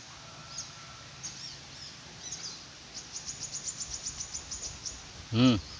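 Birds chirping, with a quick run of high repeated notes, about nine a second, in the middle. A short spoken word near the end is the loudest sound.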